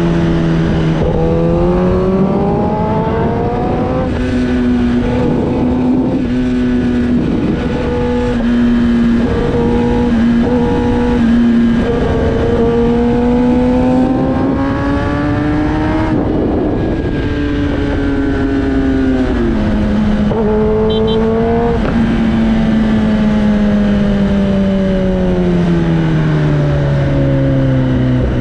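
Inline-four sport motorcycle engine being ridden hard: the pitch climbs under throttle and drops suddenly at several gear changes, over a steady rushing noise. Over the last few seconds the pitch falls slowly as it slows down.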